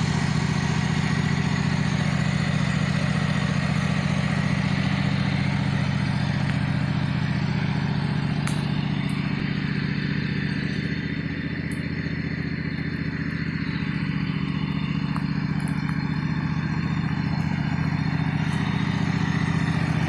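Engine of a Craftsman riding lawn tractor converted to a half-track, running steadily.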